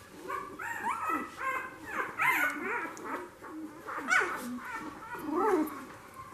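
Week-old F1 Goldendoodle puppies crying in many short, high squeaks that rise and fall, several puppies overlapping at once.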